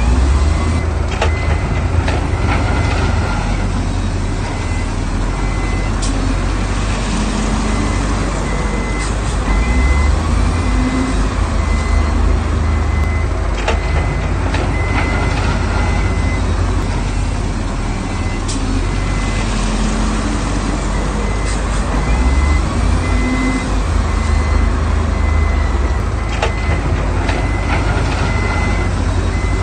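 Heavy diesel earthmoving machinery, a bulldozer and dump trucks, running under load with a deep engine rumble. A reversing alarm beeps steadily throughout, and there are occasional metallic clanks.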